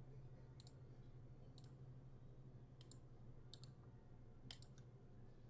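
Faint computer mouse clicks, about one a second and five or six in all, the sharpest about four and a half seconds in, over a low steady hum.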